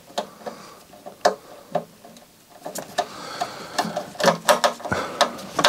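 Small screwdriver turning a screw in the metal case cover of a MiniDisc deck: a string of irregular small clicks and light scrapes, a few each second.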